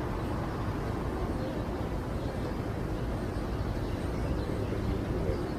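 Steady low rumble of a car heard from inside the cabin, with no distinct events.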